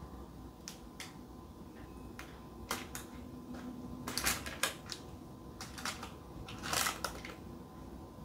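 Scattered light clinks, knocks and scrapes of a metal saucepan and utensil while cheese béchamel is poured out of it onto the lasagne, the loudest about seven seconds in.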